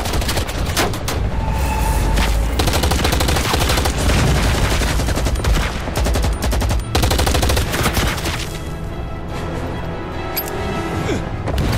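Dense, rapid gunfire of a film battle soundtrack, much of it automatic weapons, with dramatic score underneath. The shooting thins for a few seconds near the end while the music's held tones come forward, then picks up again.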